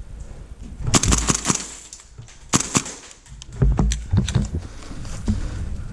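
Airsoft rifle shots in quick bursts of sharp cracks, heard in a few clusters about a second apart, mixed with heavy thumps.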